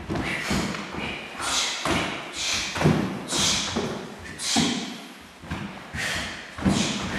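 Bare feet thudding and scuffing on a wooden floor as martial arts students kick, step and jump, an uneven run of thuds about two a second.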